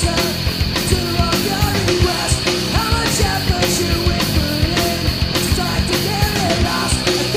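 Hardcore punk band recording: distorted electric guitars, bass and drums playing at a steady driving rhythm.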